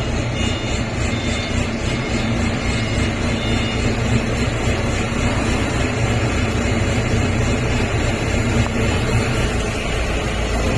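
Forklift engine running steadily while it lifts and carries another forklift, a continuous low engine hum with mechanical noise over it.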